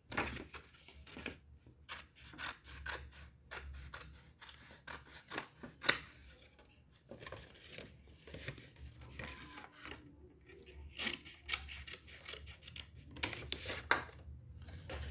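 Scissors cutting a folded sheet of paper, with the paper handled and creased between cuts: an irregular run of short snips and rustles, one louder snap about six seconds in.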